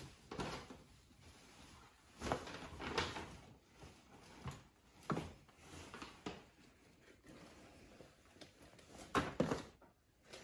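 Irregular bursts of cloth rustling and handling noise as a woollen plaid scarf (muffler) is shaken out and wrapped around the neck.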